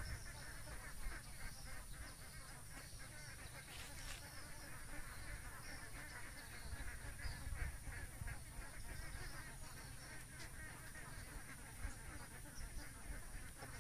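Waterfowl calling continuously in a dense chattering chorus, with wind rumbling on the microphone.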